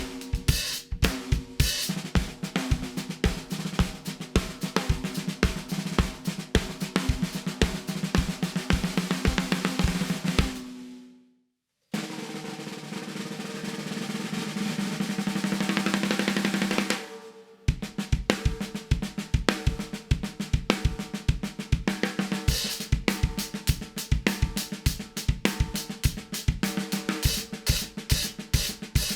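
Drum kit groove built around a CMC maple and bubinga 14x7-inch snare drum, with kick drum under it, breaking off about eleven seconds in. After a brief gap a snare roll swells louder for about five seconds, then the groove starts again.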